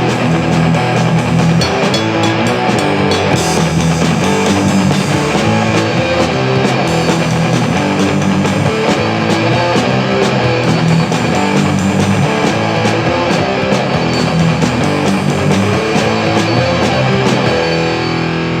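Rock band playing: electric guitar over drums, with keyboards in the arrangement. The music thins slightly near the end.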